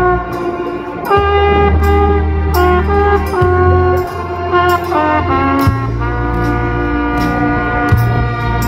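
Trumpet playing a melody of held and moving notes over a backing of deep bass and drums, with evenly spaced cymbal strokes.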